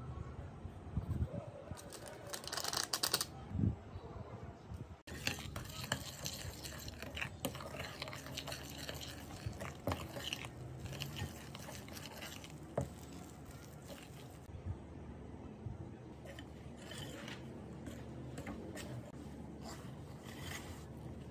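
Flour poured into a glass mixing bowl, a brief hiss about two seconds in. After that comes a metal utensil stirring stiff, crumbly cocoa cookie dough, with irregular scraping and clicks against the glass bowl.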